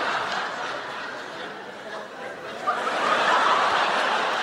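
Audience laughing, easing off and then swelling up again sharply about three seconds in.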